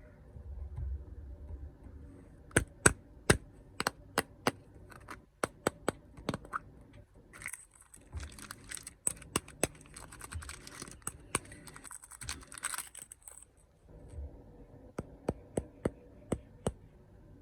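Snack packaging handled close to the microphone: a run of sharp taps and clicks, then plastic wrapper crinkling and tearing for about five seconds in the middle, then more clicks.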